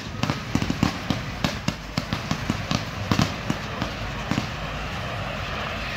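Low-noise display fireworks: irregular sharp cracks and pops, several a second, for about four seconds, giving way to a steady hissing spray from a ground fountain.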